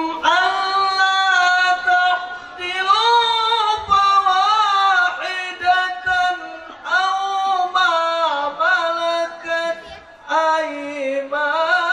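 A man's high voice reciting the Qur'an in Arabic in the melodic, chanted tilawah style. He holds long notes with winding ornamental turns and breaks off briefly for breath three times.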